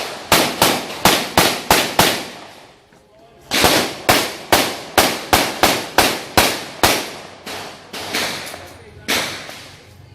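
Gunshots fired in quick strings of about three shots a second, each with a short echoing tail. A string of about six shots is followed by a pause of a second and a half, then a string of about ten shots, then a few slower, spaced shots near the end: a competitor shooting a timed course of fire.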